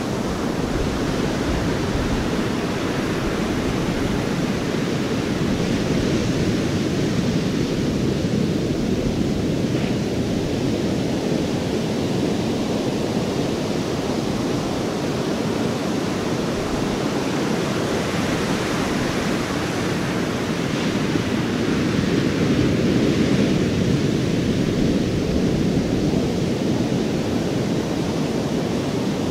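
Ocean surf: a steady rushing wash of waves that swells and eases slowly.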